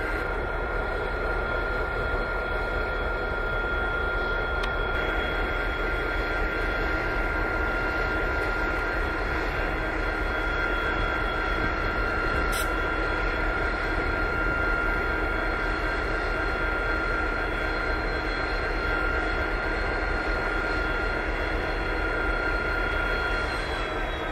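Diesel-electric freight locomotives running at idle: a steady engine rumble with a high whine held over it, as one locomotive is eased slowly up to couple to another. The whine drops slightly in pitch near the end, and there is a single brief click about halfway.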